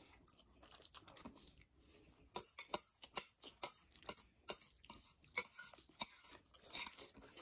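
Close-up eating sounds of two people chewing noodles and dumplings: irregular sharp wet mouth clicks and smacks, mixed with chopsticks clicking against plates, growing busier about two seconds in.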